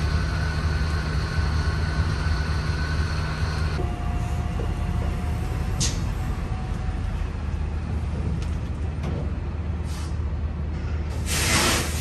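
Semi truck's diesel engine idling steadily; part of the hum cuts out about four seconds in. Near the end comes a loud burst of hissing air from the truck's air brakes.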